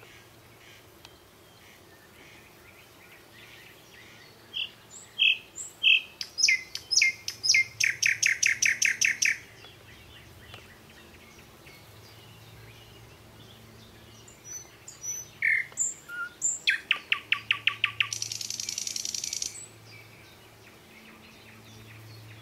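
A songbird singing twice: each song a fast run of repeated high chirps, the second ending in a long buzzy note.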